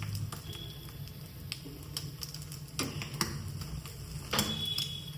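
Scattered light clicks and knocks of kitchenware being handled, about eight in all at uneven intervals, over a low steady hum.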